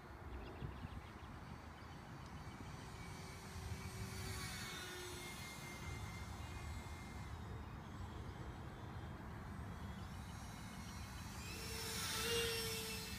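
Electric ducted fan of a radio-controlled Yak-23 profile jet, a 55 mm EDF on a 3-cell battery, whining as the model flies. The whine swells twice as it passes, loudest in a low pass near the end.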